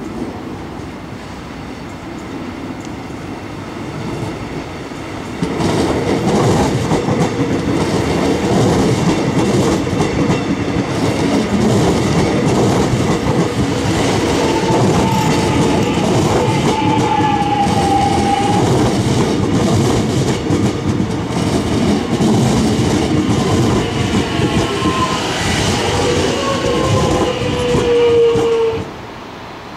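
Metro Trains X'trapolis electric train running in over the points and passing close by. A low running noise swells about five seconds in to a loud, steady rumble and clatter of wheels on rail, with thin high tones sliding down in pitch. It cuts off abruptly near the end as the last car goes by.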